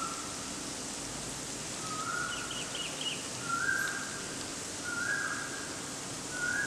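Onion paste and ground masala frying in hot oil in a kadai, a steady sizzle. A short whistled bird note repeats about every second and a half over it.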